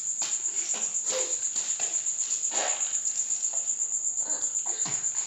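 A cricket trilling steadily, one high note pulsing several times a second, with a few faint brief sounds from the room underneath.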